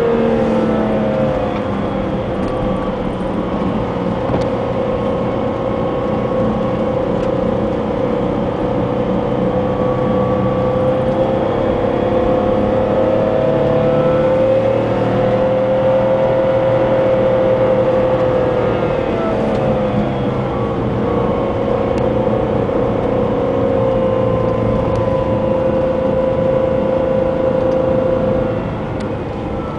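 Jaguar X-Type driving on a wet road, heard from inside the cabin: a steady engine hum over tyre noise, its pitch gently rising and falling with speed. It gets a little quieter near the end.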